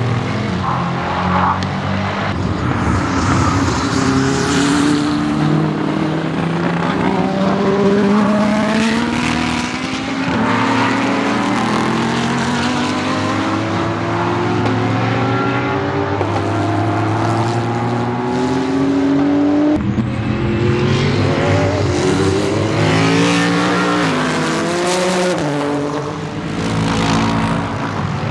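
Several race cars running on a circuit, a mix of prototypes and GT cars. Their engine notes overlap, rising in pitch and breaking off again and again as the cars accelerate, shift and pass.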